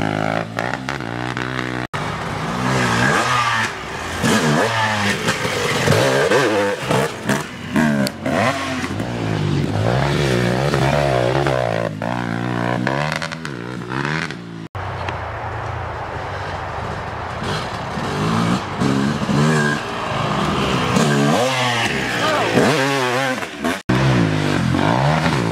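Dirt bike engine revving hard as it is ridden along a dirt trail, the pitch climbing and falling with each twist of the throttle and gear change. The sound breaks off for an instant three times.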